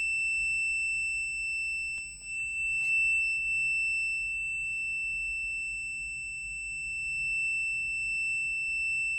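FUYI 8233D multimeter's continuity beeper sounding one steady, unbroken high-pitched beep, the signal of a low-resistance path between the test leads.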